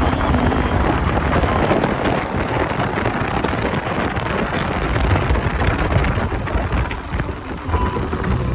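Loud wind buffeting the microphone while filming from a moving vehicle, with a deep low rumble underneath that drowns out other sound.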